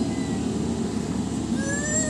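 Steady airliner cabin noise, with a short rising whine coming in near the end.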